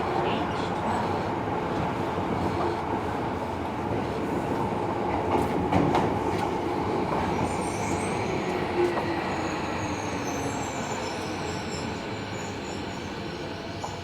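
Tobu 70000 series train running on the Tokyo Metro Hibiya Line, heard inside the car: steady wheel and track rumble with a few rail-joint knocks about halfway through. High wheel squeal follows in the second half while a low tone slowly falls in pitch, and the noise grows quieter toward the end.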